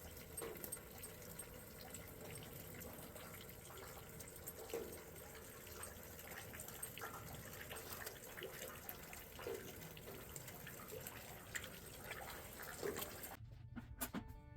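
Steady rush of running water with scattered light ticks and splashes. Music comes in near the end.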